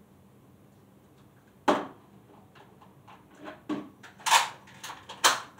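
Sharp knock about a second and a half in, then a quick run of short knocks and clatters near the end.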